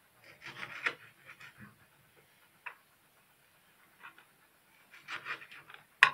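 Kitchen knife slicing a tomato on a plastic cutting board: short scraping cuts in two runs, a little under a second in and around five seconds, with one sharp knock of the blade on the board near the end.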